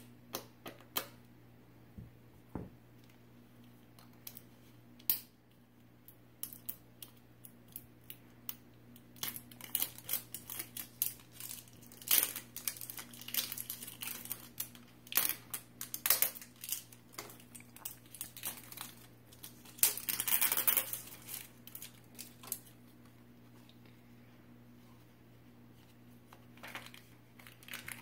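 Plastic and foil wrapping of an L.O.L. Surprise doll being torn open and crinkled by hand: a run of sharp crackles and rustles, densest in the middle, with a longer tearing rustle about twenty seconds in.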